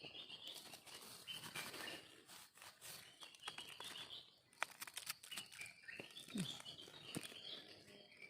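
Forest birds chirping on and off, with scattered crackles and rustles of dry leaf litter being stepped on or handled.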